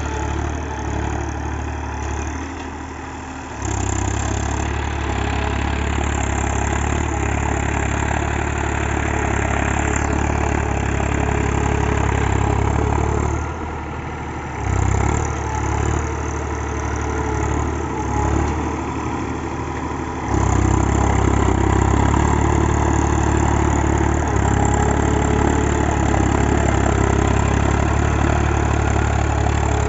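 Massey Ferguson tractor's diesel engine running as it drives over a heap of paddy straw to thresh the rice. Its steady low drone grows louder about four seconds in, dips a few times in the middle, and is loudest again from about two-thirds of the way through.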